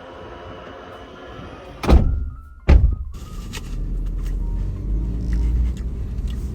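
Background music, then two heavy thunks about a second apart, followed by a steady low rumble.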